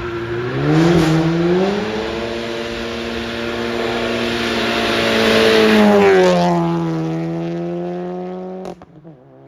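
Volkswagen Mk7 GTI's turbocharged 2.0-litre four-cylinder held at high revs through a loud exhaust during a burnout, with the spinning tyres hissing over the engine note. The revs climb about a second in, hold high, ease down after about six seconds and drop away abruptly near the end as the throttle is lifted.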